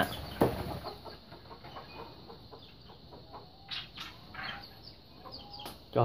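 Chickens clucking softly, with scattered faint chirps from small birds. One short louder sound comes just after the start.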